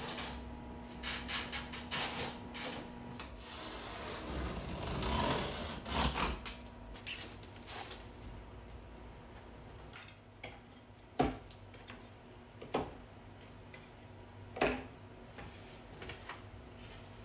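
Cardboard packaging scraping and rustling as a boxed folding low table is unpacked, then a few sharp clicks and knocks as the table's legs are swung out.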